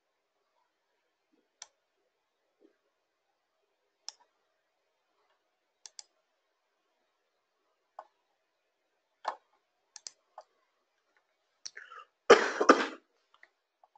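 Faint computer-mouse clicks every second or two, then a brief cough about twelve seconds in, much the loudest sound.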